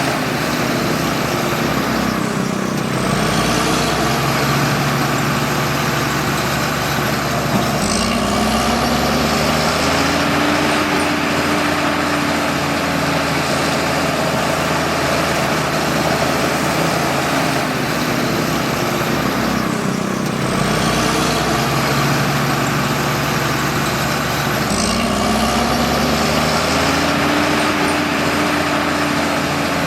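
Bulldozer's diesel engine running loud and steady, its pitch dipping and rising again a few times as the load on the machine changes, with a faint high whine sweeping at each change.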